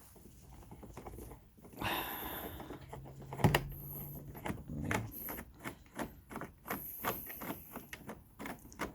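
Plastic door trim parts being worked loose by hand: a scraping rustle, one sharp snap about three and a half seconds in, then a run of irregular light clicks and knocks.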